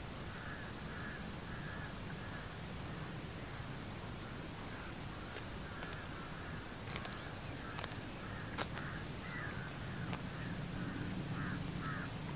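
Crows cawing over and over, a long run of short harsh calls, with a few sharp clicks in the middle.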